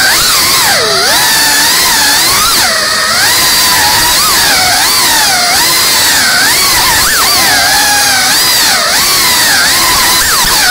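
FPV quadcopter's brushless motors and propellers whining loudly, the pitch swooping up and down continually with throttle changes.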